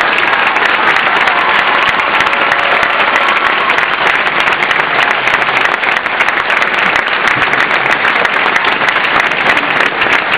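Audience applauding steadily: many people clapping at once in a dense, even patter.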